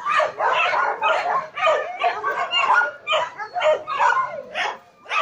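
Dog barking and yapping rapidly, about three short barks a second, with a brief pause near the end.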